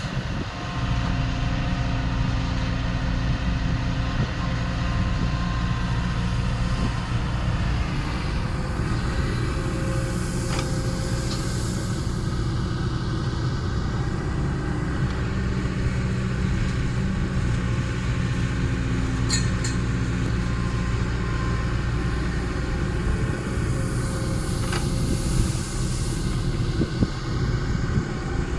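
Kobelco SK-series hydraulic excavator's diesel engine running steadily while the machine works, its note shifting slightly under load, with a few sharp clicks and knocks.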